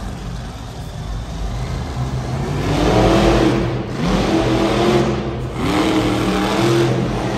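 Monster truck engine revving hard. After a low rumble it climbs in pitch about two and a half seconds in, and again about five seconds in.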